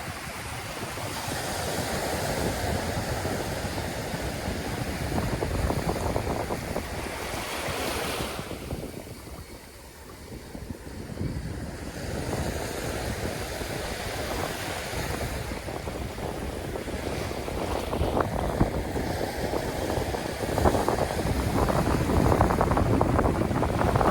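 Waves breaking and washing in, with wind rumbling on the microphone; it eases for a couple of seconds about ten seconds in and grows louder near the end.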